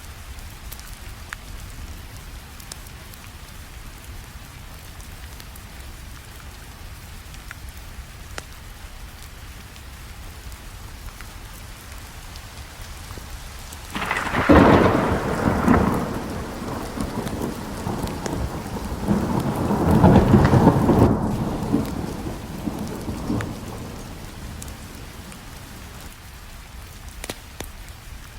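Steady rainfall with a thunderclap that breaks in suddenly about halfway through. The thunder rumbles on through a second swell and dies away over about ten seconds.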